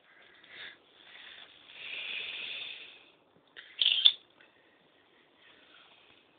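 Black plastic bag rustling and crinkling as two tabby cats shift about on it. The sound comes in a couple of bursts: a longer soft rustle about two seconds in, then a short, sharp crinkle about four seconds in, which is the loudest sound.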